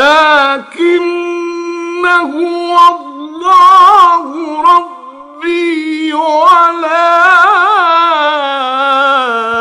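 A man's solo voice reciting the Quran in a melodic, chanted style, drawing out long, ornamented notes. A long wavering held note fills the second half.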